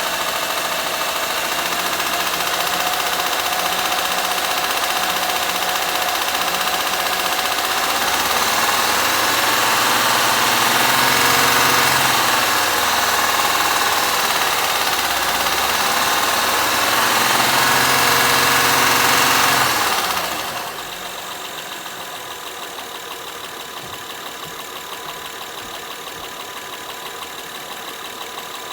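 Second-generation Honda Pilot's 3.5-litre V6 running with the engine knock its owner is showing. It is revved up and down a few times from about eight seconds in, then drops sharply to a quieter steady idle near the end.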